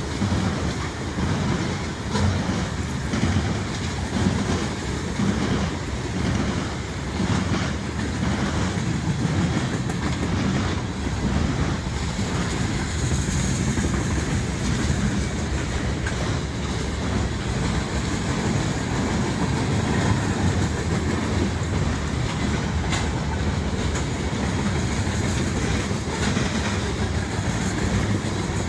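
Freight train cars (covered hoppers and a refrigerated boxcar) rolling past close by: a steady rumble of steel wheels on rail, with the wheels clacking over rail joints. There is a brief high squeal about halfway through.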